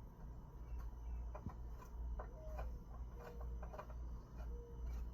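Faint scattered clicks and a few short squeaks from conduit fittings being handled and pushed into place, over a low steady hum.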